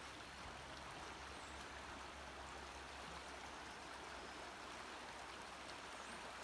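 Faint, steady rush of flowing water, an even hiss with a low hum underneath.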